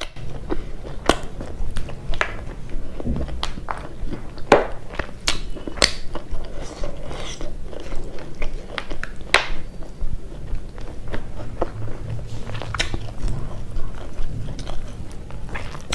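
Close-miked mouth sounds of a person chewing a mouthful of buffalo meat curry: a steady run of wet clicks and smacks.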